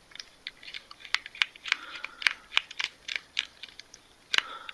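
A Phillips screwdriver turning out a small screw from a Baofeng UV-5R handheld radio's case: a run of irregular sharp clicks with light scraping between them, the loudest click near the end.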